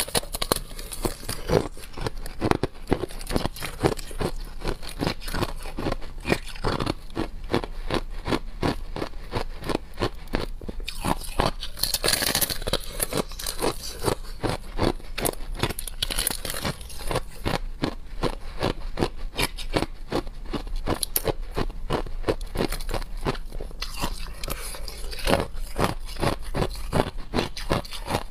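A sheet of shaved and refrozen ice being bitten and chewed: a steady run of crisp crunches, several a second, with no break.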